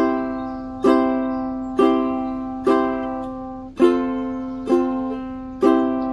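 Ukulele strummed seven times, a little under one strum a second: four strums of a C chord, two of an F chord, then a final C chord left ringing out.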